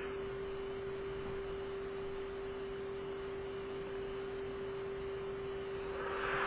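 A long, quiet draw on an electronic cigarette over a steady low hum, ending in a breathy exhale of vapour near the end.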